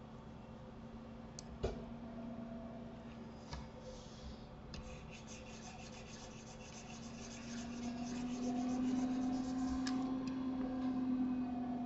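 A steady low hum that grows louder in the second half, with a few sharp clicks and a few seconds of fast scratchy rubbing in the middle.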